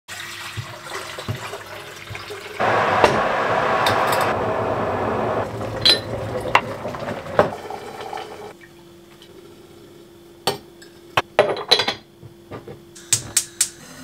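Water poured from a plastic filter jug into an electric kettle: a loud, steady pour starting about two and a half seconds in, easing off and stopping near eight and a half seconds. It is followed by a quick run of sharp plastic clicks and knocks as the kettle is handled.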